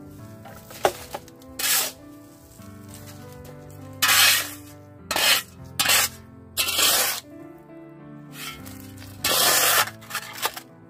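Steel shovel blade scraping and scooping into dry, gritty sandy soil, about eight strokes at an uneven pace. Background music plays under it.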